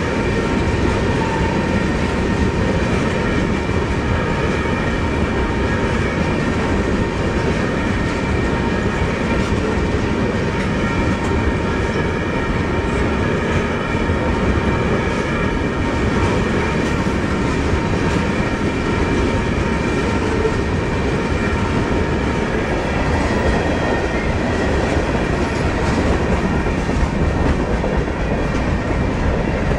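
Freight train of tank cars and boxcars rolling past close by, a steady rumble with the clatter of its wheels over the rail joints. A few steady high tones run above it throughout.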